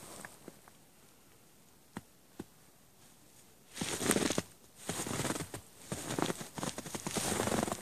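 A few faint clicks, then from about halfway in, loud stretches of close-up rustling and crackling with short breaks.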